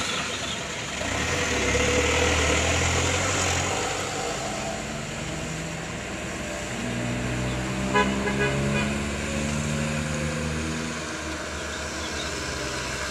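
Diesel engines of loaded dump trucks running as they drive along a dirt road, the engine note shifting in pitch several times, with a short horn toot about eight seconds in.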